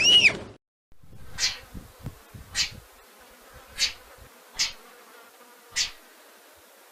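A brief arched, whistle-like call cuts off in the first half second. After a short gap, an agile wallaby gives short, sharp, breathy calls, five of them about a second apart.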